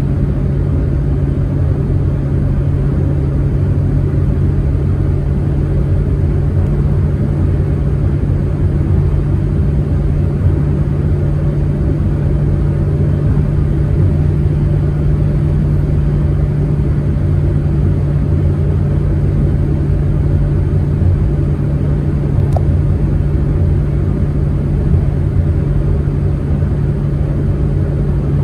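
Proton Saga MC2 car cruising at a steady speed: a constant low engine drone mixed with road and tyre rumble, with no revving or gear changes.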